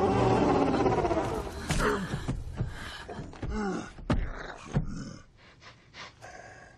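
A movie monster's long roar fading in the first second, then a run of short gasping cries and grunts broken by scattered knocks and thuds.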